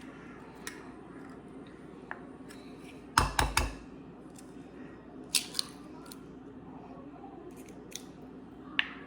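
Eggs being cracked against the rim of a small cup: a quick run of four or five sharp knocks about three seconds in, then a few lighter clicks of shell later on.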